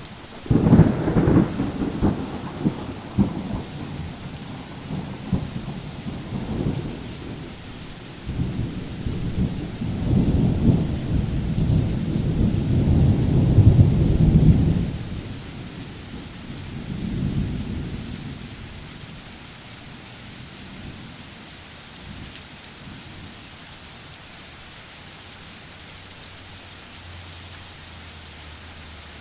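Steady rain with rolling thunder: a sudden loud clap near the start rumbles on for several seconds, a second long rumble builds to a peak before the middle and dies away, and a fainter one follows soon after. After that there is only the steady hiss of the rain.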